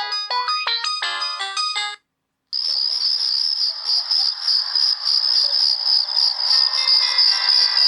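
Samsung E720 mobile phone ringtones played in turn. A quick polyphonic melody of short beeping notes ends about two seconds in. After a half-second gap the next tone starts: a high, rapidly pulsing trill over a hiss, with a few held notes coming in later.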